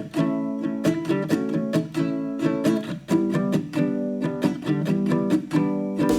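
Background music: an acoustic guitar strumming and picking chords in a steady rhythm.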